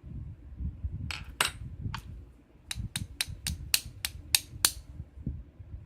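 A small lock being tapped or knocked to free a stuck pin from its chamber, sharp metallic taps. Three spaced knocks come first, then a quick run of about eight taps at roughly four a second.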